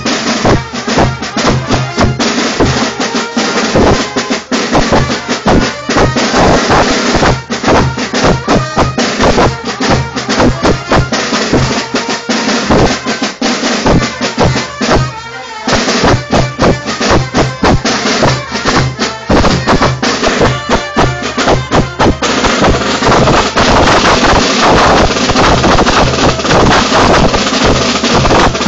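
Carnival drums played with sticks, beating a fast, driving rhythm at close range. The drumming breaks off briefly about halfway through, then comes back denser and steadier for the last third.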